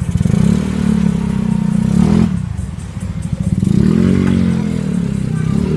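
Motorcycle engine running close by, its pitch rising and falling several times as it revs or passes.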